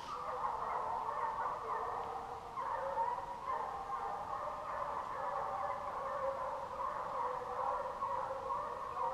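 A pack of hunting hounds baying together without a break, many voices overlapping and wavering in pitch: hounds giving tongue while running a wild boar's trail.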